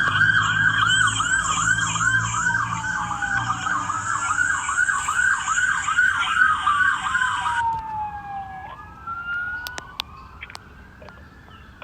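Police car sirens: one on a fast yelp, about three rises and falls a second, over another on a slower wail sweeping up and down. The yelp cuts off suddenly about three-quarters of the way through, leaving the wail fainter, with a few sharp clicks.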